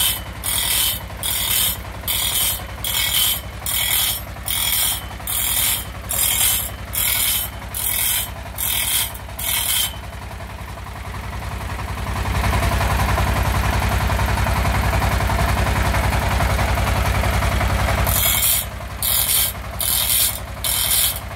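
Small electric bench grinder's abrasive wheel grinding the teeth of a long saw blade one tooth at a time: short rasping bursts of steel on the wheel about twice a second over the motor's hum. Partway through the bursts give way to a steady grinding sound for several seconds, then resume near the end.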